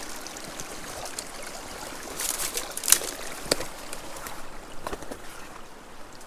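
Water trickling steadily through a beaver dam, with a few sharp cracks and rustles of footsteps on the dam's sticks from about two seconds in, the loudest just before three seconds and another near five.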